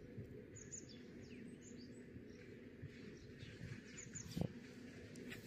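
Faint birds chirping in short high calls over steady low outdoor background noise, with a single soft knock about four seconds in.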